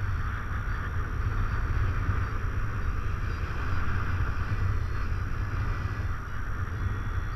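Steady wind noise from airflow over the microphone of a paraglider in flight: an unbroken low rumble with a rushing hiss above it.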